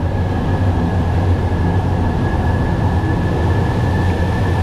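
A steady low mechanical rumble with a thin, constant high whine on top, unchanging throughout.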